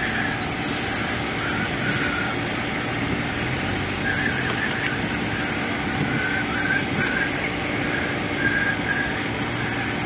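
Car driving slowly, its engine and tyre noise heard from inside the cabin as a steady, even rumble.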